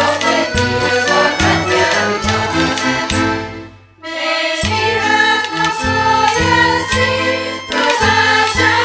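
Portuguese folk ensemble (rancho folclórico) playing a vira, with pitched instruments over a steady beat of percussion strokes. The music falls almost silent for a moment a little before halfway, then starts up again.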